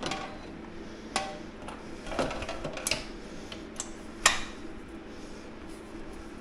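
Scattered sharp clicks and knocks of an e-bike battery being handled and seated in its mount, a cluster of them in the middle and the sharpest knock about four seconds in.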